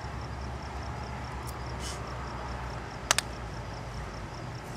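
Crickets chirping in a steady pulse, about five a second, over a low steady rumble from the distant approaching CSX GP60 diesel locomotive. Two sharp clicks about three seconds in.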